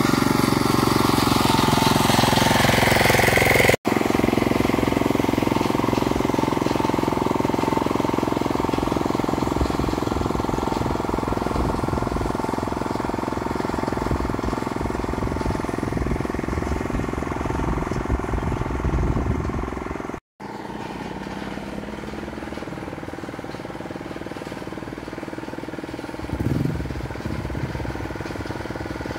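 Small engine of a plowing machine running steadily, broken by two brief dropouts, about 4 seconds in and about 20 seconds in; it is somewhat quieter after the second.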